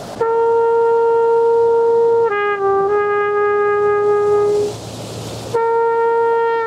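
Trumpet playing slow, long held notes: a long note steps down to a lower one about two seconds in and holds, breaks off for a short pause, and the first higher note sounds again near the end.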